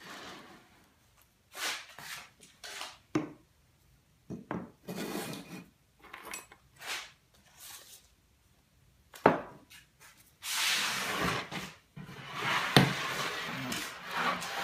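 Sanding block rubbing on a model glider wing's wooden root rib in short strokes, then in longer, steadier strokes over the last few seconds, with two sharp knocks.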